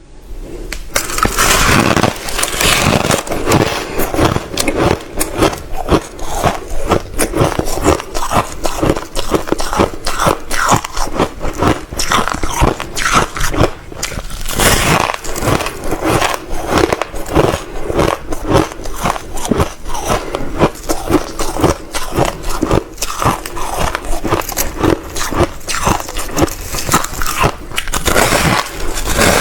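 Reshaped crushed ice being bitten and chewed close to the microphone: a dense, continuous run of loud crunches and cracks.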